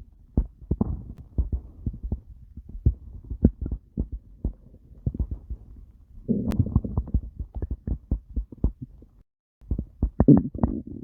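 Stomach growling: a quick, irregular run of low gurgling pops, with a longer bubbling rumble about six seconds in and another near the end, just after a brief moment of silence.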